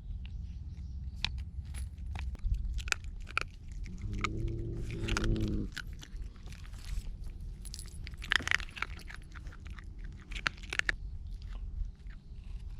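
An animal chewing and crunching food, many short crisp crunches scattered irregularly. A low drawn-out sound lasts about a second and a half, starting about four seconds in.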